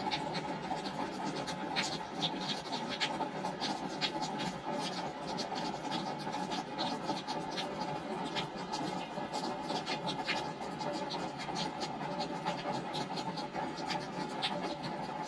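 Steady rain falling on a wooden deck, a constant hiss with many separate sharp drop ticks on the boards.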